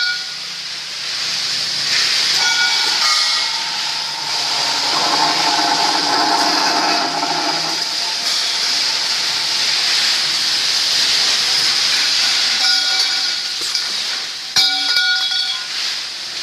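An automatic pipe-cutting machine's alloy circular saw blade runs and cuts steel pipe with a continuous loud hissing whir, and a whine comes and goes over it. There is one sharp clack near the end.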